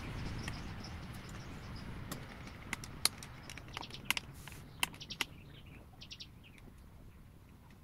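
A small spanner clicking against the metal pipe fitting on a car AC condenser's receiver-drier: a handful of short, sharp clicks between about three and five seconds in, over a faint hiss that fades away.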